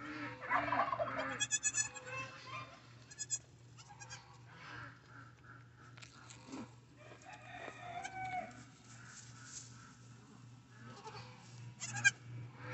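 Goats and chickens calling in a barn: a loud call in the first two seconds, then softer scattered calls, over a steady low hum.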